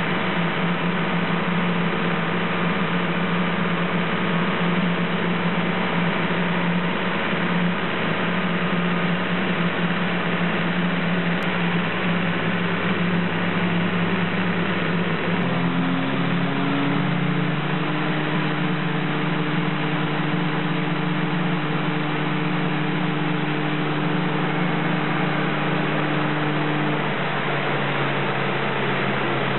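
1987 Mini City's 998cc A-series four-cylinder engine, with a modified cylinder head, running under load on a rolling road at a steady speed. It steps up in pitch about halfway through and eases back slightly near the end.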